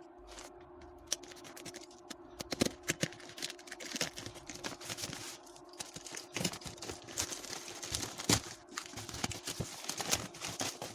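Sped-up sound of a hair dryer's packaging box being opened by hand: rapid, irregular clicks, taps and rustles over a faint steady hum.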